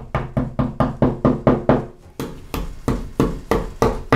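Hammer tapping plastic wall anchors into holes drilled in ceramic tile: quick, sharp strikes about three to four a second. They pause briefly about two seconds in, then resume louder.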